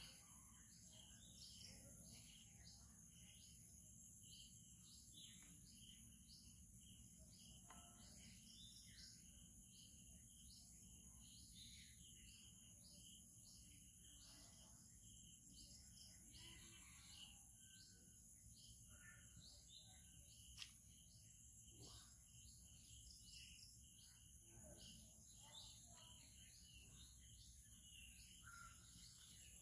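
Faint outdoor wildlife ambience: short high chirps repeating about twice a second over a steady high insect buzz, with a single faint click about two-thirds of the way through.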